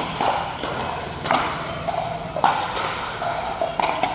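A racket-and-ball rally on a hard court: four sharp ball strikes about 1.2 seconds apart.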